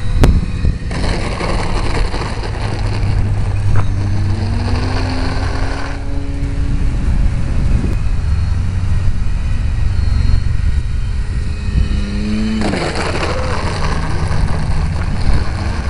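A vehicle's engine running with a steady low hum, its pitch rising as it speeds up two or three times, with bouts of wind noise on the microphone.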